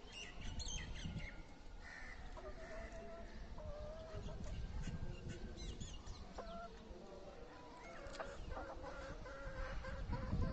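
Chickens clucking quietly in short, low calls that come and go, with a few higher chirps scattered among them.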